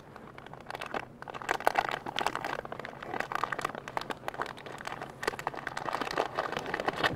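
Plastic snack wrapper crinkling and crackling as it is handled, in irregular rustles that grow denser after about a second.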